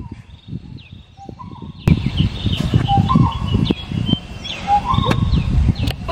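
Birds chirping, with short high chirps and repeated clear whistles, over a low rumble. A sharp click comes about two seconds in, after which the rumble grows louder.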